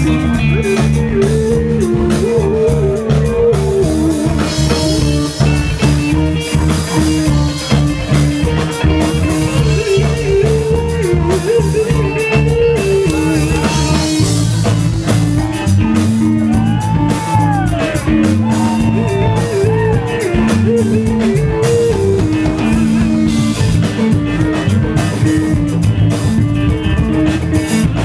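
Live electronica-style jam band playing: electric guitar, synthesizer and drum kit over a deep bass line, with a steady drum beat. Partway through the low bass pattern changes, and shortly after a lead note bends up and back down.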